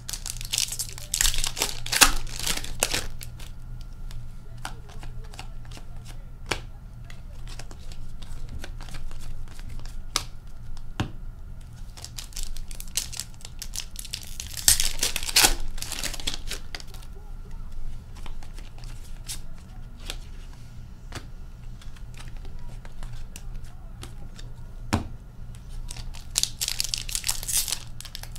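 2020-21 Upper Deck Series 1 hockey card packs being torn open and their wrappers crinkled by hand, in three spells: near the start, in the middle and near the end. Between them come a few sharp clicks as cards are set down on the glass tabletop.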